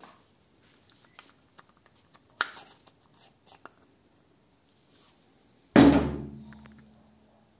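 Steel parts of a pneumatic drill being handled during disassembly: a few sharp metal clicks and scrapes, then one loud metal clang about six seconds in that keeps ringing for over a second as it dies away.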